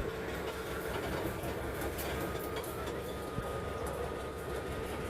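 GE U18C (CC201) diesel-electric locomotive's V8 diesel engine running steadily in throttle notch 3. A thin steady whine joins about two seconds in.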